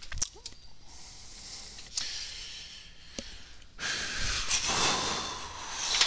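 Handling noise: a few light clicks and knocks, then about two seconds of rustling, scraping noise as things are moved about.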